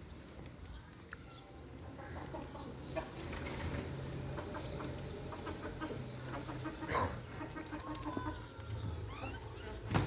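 Farmyard chickens clucking, with wings flapping and scattered short knocks and clicks.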